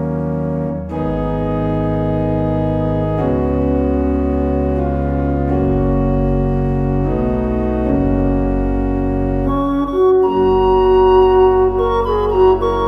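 Organ music: held chords that change every second or two, with a higher melody line entering about ten seconds in.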